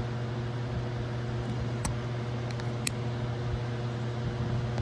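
Steady low machine hum with a few faint higher overtones, broken only by two faint clicks about two and three seconds in; no charging chime sounds.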